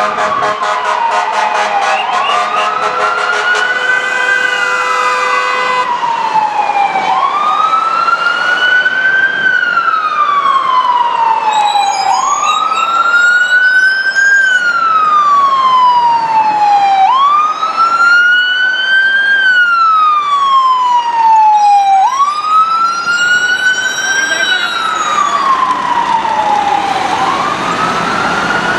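Ambulance siren sounding a wail, rising and falling in pitch about every five seconds. For the first several seconds a steady, pulsing horn blares over it.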